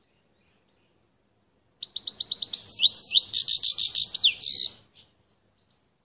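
Male French canary singing one phrase of about three seconds, starting about two seconds in. The phrase is a quick run of repeated notes, then a few sweeping whistles, then a faster trill that stops abruptly.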